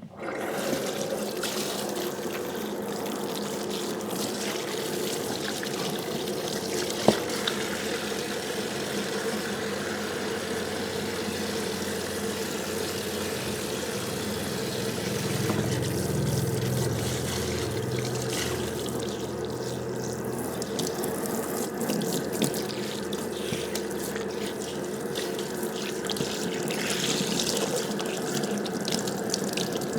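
Running water, turned on at the very start and then flowing steadily. There is one sharp click about seven seconds in.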